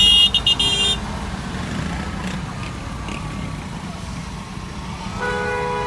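Vehicle horns in busy city traffic, heard from inside a car's cabin: a loud, high-pitched horn toots several times in quick succession at the start, over a steady low rumble of engines, and a lower two-tone horn begins a long blast near the end.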